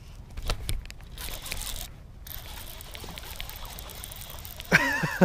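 Clicks and rustling from handling close to the microphone, then a steady soft hiss, and a short man's exclamation near the end.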